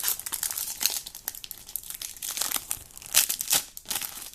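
Plastic wrapper of a trading-card packet crinkling and tearing in the hands as it is opened, in quick irregular crackles.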